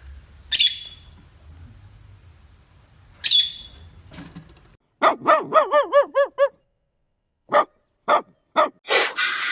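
A dog barking: a quick run of about eight rapid yaps, then four single barks about half a second apart.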